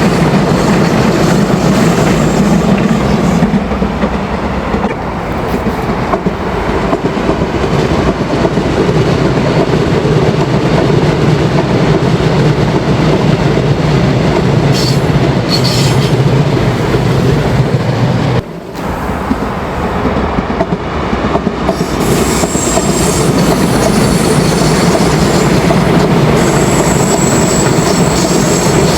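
Subway train running on its rails with a steady rumble, interrupted briefly about two-thirds of the way through. Near the end come high, thin wheel squeals.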